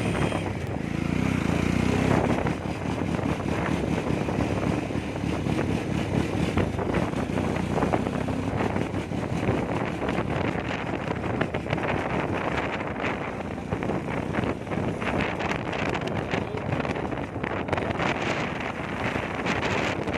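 Motorcycle engine running on the move, with wind noise on the microphone. The bike is said to be misfiring and slow to pick up speed.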